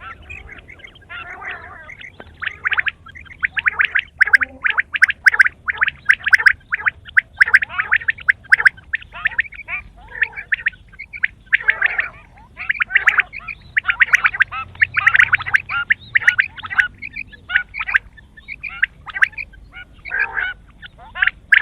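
Quail calling over and over in rapid, rattling bursts, call after call with only short gaps between runs.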